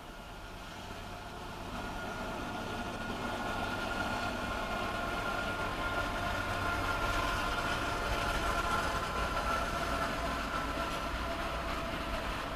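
Norfolk Southern freight train rolling past with its diesel locomotives, heard from inside a parked car: a steady rumble that grows louder over the first few seconds, with a steady high whine above it.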